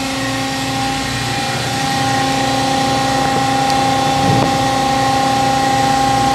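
Hydraulic test stand running a Parker TB0130 low-speed, high-torque motor under load at 20 gallons a minute and 3,000 PSI: a loud, steady whine and hum from the pump and motor.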